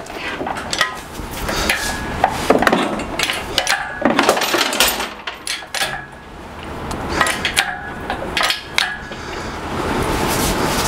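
Lifting chains clinking and rattling, with irregular metal clanks and knocks, as a 1-ton hydraulic shop crane is pumped and its chains take up the weight of a roughly 500-pound air compressor.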